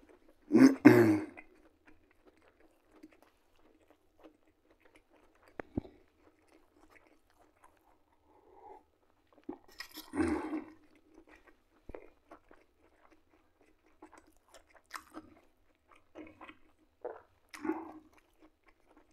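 Close-up chewing and mouth sounds of a man eating liver patties, mostly quiet with scattered small clicks, and louder bursts about a second in, around ten seconds in and near the end.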